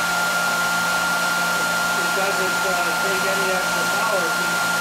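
Electric motor of a generator test rig running steadily at idle, a continuous whir with one constant high-pitched whine. Faint voices murmur underneath.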